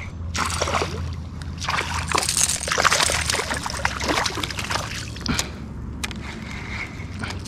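Water splashing and sloshing as a fish hooked on a crankbait is fought beside a kayak. It starts about half a second in, is strongest in the middle, and eases off after about five seconds with a sharp click.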